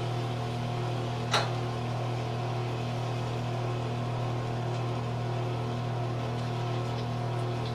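Steady low electric hum with a row of overtones, like a running fan motor. About a second and a half in, a single sharp metallic clink from the steel mixing bowl.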